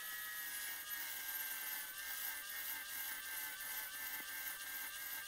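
Handheld angle grinder grinding the rust-pitted steel face of an antique hatchet head: a steady high motor whine over a constant hiss of the disc on the steel. The pitting is deeper than a hand file could get through, so it is being ground out.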